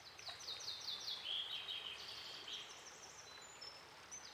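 Small songbirds singing: quick trills of high repeated notes, one run stepping down into a lower phrase about a second in, over a faint steady hiss of flowing creek water.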